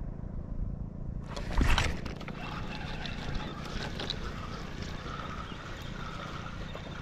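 Steady low rumble of wind and water noise around a small fishing boat, with one loud sudden thump about a second and a half in.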